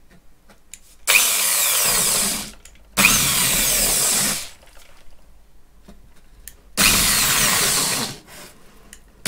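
Power drill boring holes through the wall of a styrofoam (expanded polystyrene) box. It runs in three bursts of about a second and a half each, with short pauses between.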